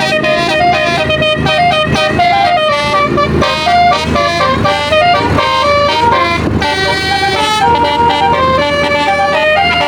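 Bus 'telolet' basuri horn, a multi-tone musical horn, playing a melody: loud, continuous tones stepping quickly from note to note.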